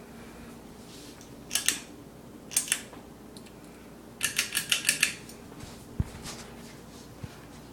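Sharp clicks: two quick pairs, then a fast run of about seven, then a single knock and a last small tick, over a faint steady low hum.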